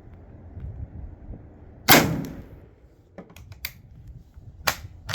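Dreyse M1841 needle gun fired once: a single sharp shot about two seconds in that dies away over about half a second. A few short, sharp clicks follow.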